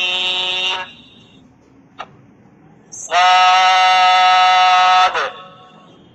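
A man's voice reciting Arabic disjointed letters (al-ḥurūf al-muqaṭṭaʿāt) in Quranic style, each letter name drawn out on one steady pitch for about two seconds: the long madd elongation these letters take in tajweed. One held note ends within the first second, a faint tap comes about two seconds in, and a second held note runs from about three to five seconds in.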